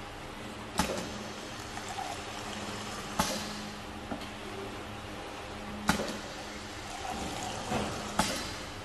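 Single-nozzle pneumatic piston liquid filling machine cycling: four sharp clunks a couple of seconds apart, each followed by a hiss of liquid pouring into a plastic jar, over a steady low hum.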